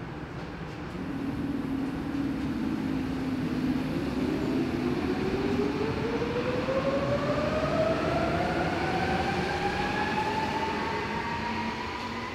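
Berlin U-Bahn train accelerating out of a station, its traction motors whining in a pitch that climbs steadily over several seconds.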